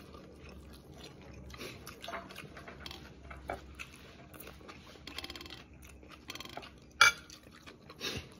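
Close-up eating sounds: chewing and mouth noises, with small clicks and scrapes of fingers picking food off a plate, and one sharp louder click about seven seconds in.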